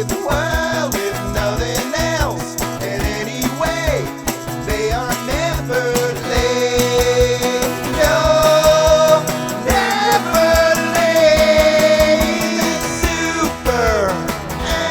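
Upbeat theme song with a singing voice over guitar, bass and a steady drum beat.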